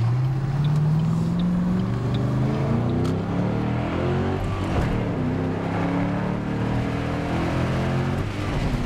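2008 Mustang GT's 4.6-litre V8 under acceleration: the engine note rises, drops at a gear change about two seconds in, then pulls on and levels off at a steady pitch.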